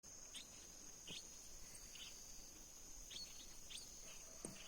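Faint outdoor ambience: a steady high-pitched insect drone, with short bird-like chirps repeating every half second to a second and a faint click near the end.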